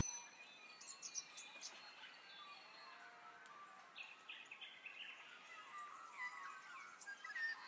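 Faint chorus of small birds chirping and whistling: many short, high notes and quick rising and falling whistles, growing busier near the end.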